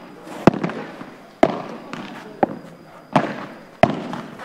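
Padel ball being played: five sharp pops of the ball striking rackets and the court, about one a second.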